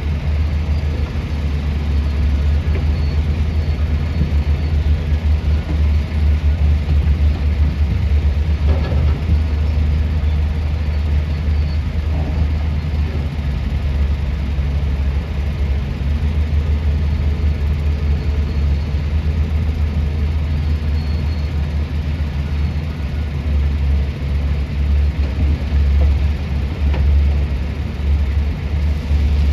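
Heavy diesel mining machinery, a large hydraulic excavator and dump trucks, running steadily, the sound mostly low-pitched.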